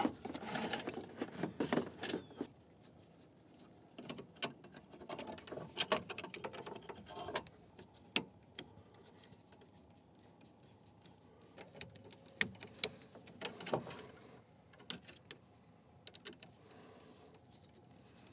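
Clicks, scrapes and small metal rattles of hands wiring a duplex electrical receptacle with a screwdriver at a metal junction box. They come in irregular bursts separated by quiet pauses.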